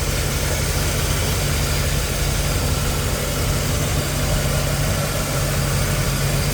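Chevrolet 327 small-block V8 idling steadily.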